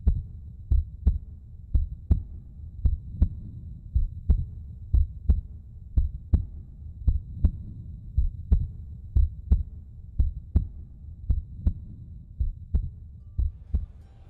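Heartbeat sound effect: deep paired thumps, about one lub-dub a second, over a low hum.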